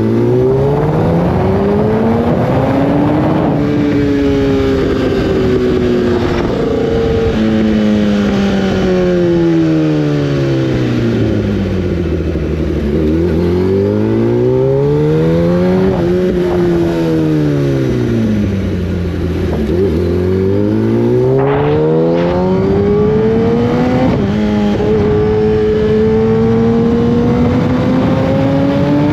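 1000 cc inline-four sport-bike engine under way: the revs climb through several quick upshifts, then fall and rise twice as the rider rolls off and opens the throttle again, then hold near steady. Wind rush runs under the engine note.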